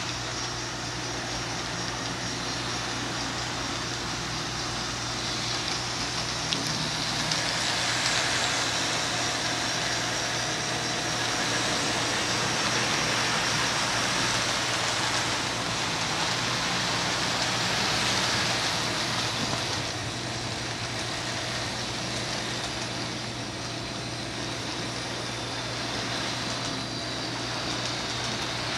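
Model freight train cars rolling along the layout's track, a steady rolling noise that grows louder through the middle as the cars pass close, over a steady low hum.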